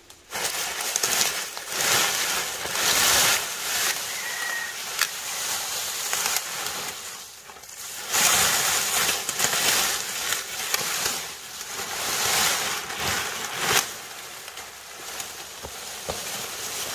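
Dry corn stalks and leaves rustling and crackling as they are gathered up and carried by the armful, with a sharp snap now and then.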